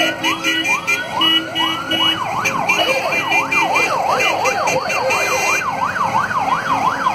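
Electronic vehicle siren sounding, first as a rising whoop repeated about twice a second, then from about two seconds in as a continuous up-and-down wail.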